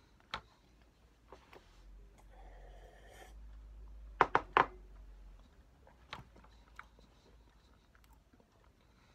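Handling noises close to the microphone: a soft rustle with a low rumble under it, then a quick run of three sharp clicks about four seconds in, with a few lighter clicks and taps scattered around them.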